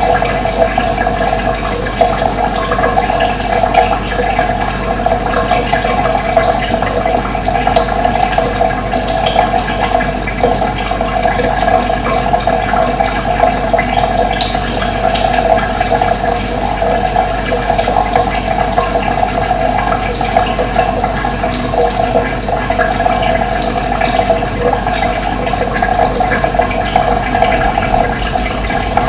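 Running water flowing steadily with an even, unbroken rush.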